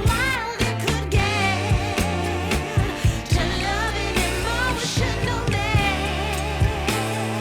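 Background pop music with a sung vocal line over a steady beat and bass.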